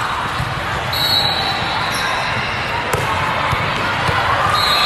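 Ball bouncing on a sports-court floor in an echoing indoor hall, with a sharp smack about three seconds in, over steady crowd chatter and faint high squeaks.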